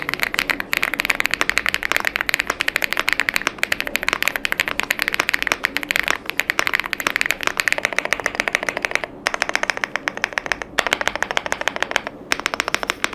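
Fast typing on the MCHOSE GX87 Ultra mechanical keyboard: a dense, continuous run of key clicks, broken by a few short pauses in the second half.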